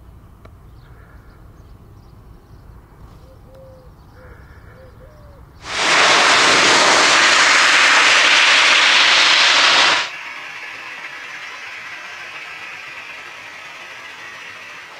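Jet aircraft taxiing: a quieter steady engine rumble, then loud, steady jet-engine noise from a twin-engine Airbus A330 passing close by. The loud noise cuts in abruptly about six seconds in and cuts off just as abruptly about four seconds later. Quieter, distant jet-engine noise follows.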